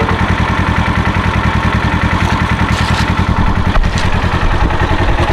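An engine idling steadily and close by, with an even low pulsing rhythm and a few faint ticks over it.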